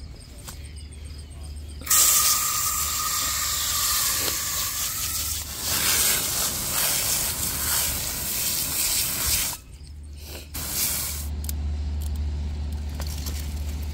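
Loud hissing noise like spraying water, starting about two seconds in, dropping away briefly near ten seconds, then resuming.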